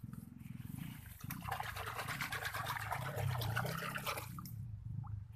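Water and mud splashing and sloshing around a person's feet and legs as he moves in a flooded, muddy ditch beside a rice paddy. The splashing is busiest from about a second in until about four seconds in, then eases, over a steady low rumble.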